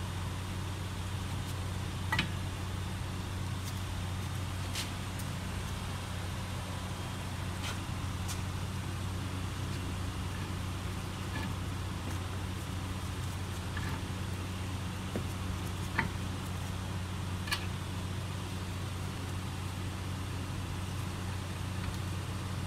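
A steady low hum under a handful of short, sharp metallic clicks and taps, spread out, from handling the Acura RDX's front brake caliper as it is seated loosely on its bracket.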